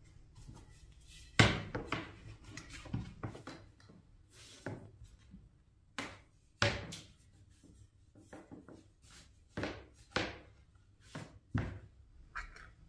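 A series of irregular sharp knocks and clatters, about a dozen, spaced unevenly, the loudest about a second and a half in.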